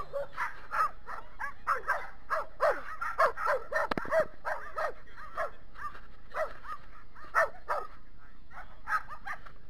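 Several dogs barking in a string of short barks, thick and overlapping at first and thinning out after about five seconds.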